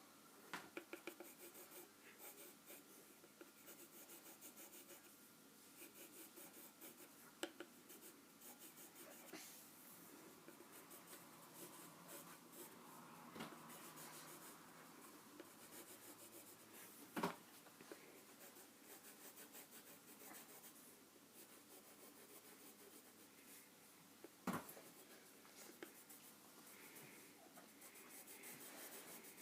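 Faint scratching of a drawing tool on paper, in quick repeated strokes, with two sharp clicks or taps about halfway through and again later.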